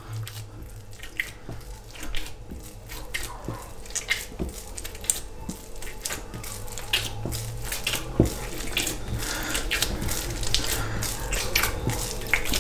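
Wet, high-hydration pizza dough being kneaded by hand with oil on a worktop: a run of irregular sticky, wet smacks and squishes as the dough is worked and takes up the oil. A faint steady low hum sits underneath.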